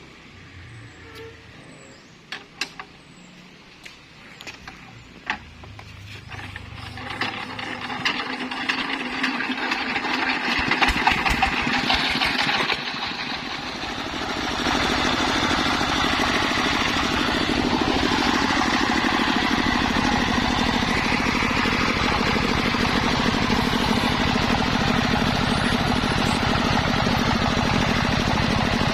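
A few sharp knocks, then the engine of a homemade mobile circular saw rig starts up and comes up to speed, dips briefly, and settles into a steady, loud run.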